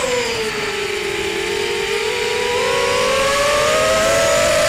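Racing quadcopter's four T-Motor 1806 2300kv brushless motors and 5-inch propellers whining in flight. The pitch sags over the first second or two, then climbs slowly back as the throttle changes.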